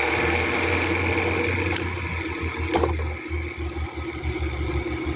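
Arno electric fan running with a steady mechanical buzz and hum. The blade is loose on the motor shaft, and that play makes the noise, which the owner had first taken for a bad capacitor or motor. Two short knocks come about two and three seconds in.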